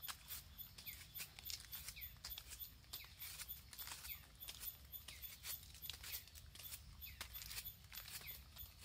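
Knife blade slicing the rind off a small wild pineapple: a faint run of quick, crisp cutting strokes, a few each second.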